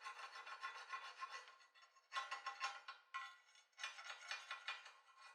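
Faint crackling sizzle of a stick-welding arc burning a 7018 rod on mild steel, with short breaks about two, three and three and a half seconds in.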